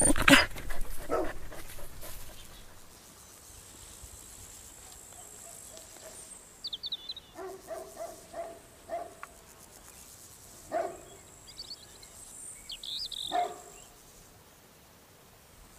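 Dog barking: a loud close bark right at the start, then quieter barks at intervals, a cluster of several followed by two single ones. Birds chirp and insects trill steadily behind.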